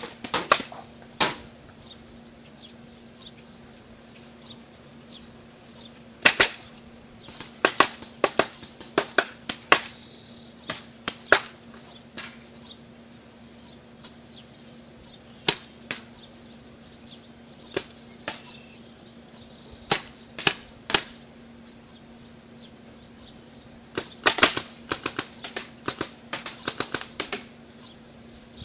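Paintball markers firing: scattered sharp pops coming in quick runs, with the densest volleys near the middle and near the end.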